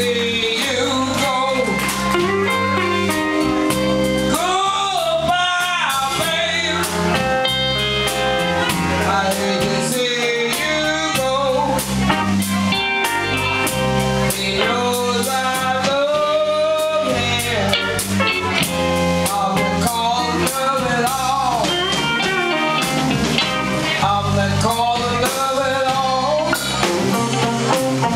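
Live blues band playing: a woman singing over electric guitars, bass guitar and drum kit.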